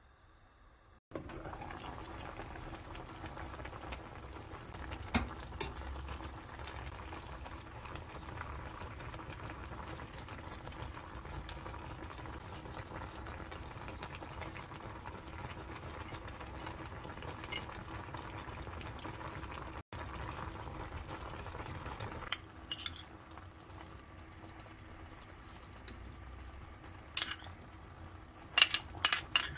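Pot of kimchi and Spanish mackerel stew boiling with a steady bubbling. Near the end the bubbling drops lower and a metal spoon clinks several times against a bowl and the pot.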